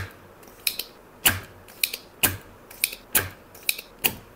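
Spring-loaded desoldering pump (solder sucker) being cocked and fired again and again: a sharp snap about once a second, with lighter clicks in between, as it sucks melted solder off the pins of a circuit board.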